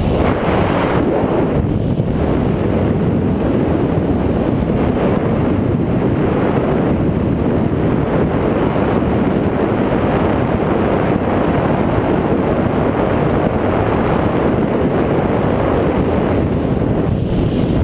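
Rushing airflow buffeting the action camera's microphone on a tandem paraglider in a steep banked turn: a loud, steady rumble of wind noise.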